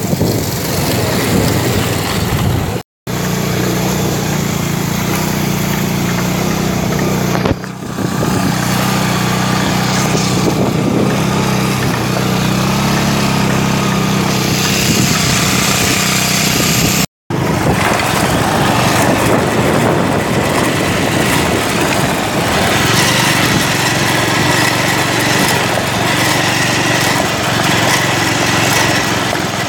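Motorcycle engine running while riding, with a steady low hum under a dense noise. The sound drops out completely for an instant twice, a few seconds in and about halfway.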